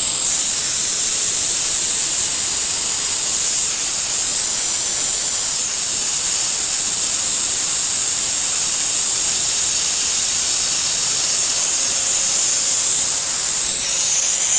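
Compressed air hissing loudly and steadily out of the opened relief valve on a Soilmoisture 0505 air compressor, bleeding the tank pressure down so the compressor will cut back in.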